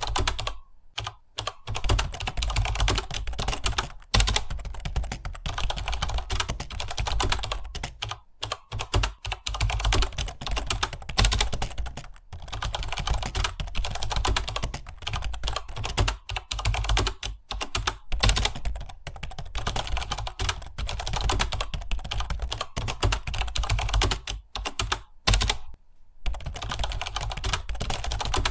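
Fast, continuous typing on a computer keyboard, a steady stream of key clicks broken by a few brief pauses.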